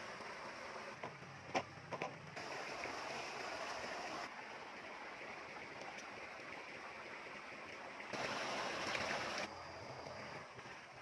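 Shallow water sloshing and splashing around a person wading, with a couple of short sharp sounds about a second and a half and two seconds in. The water noise changes level abruptly several times.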